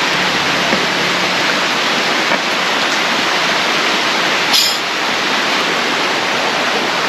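River water rushing steadily, an even, constant hiss. A single short knock about four and a half seconds in.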